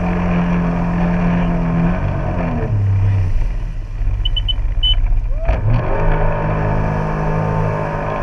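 Jet ski engine running at a steady note, dropping in pitch and fading about two seconds in, then coming back to a steady note about six seconds in. A few short high beeps sound in the middle.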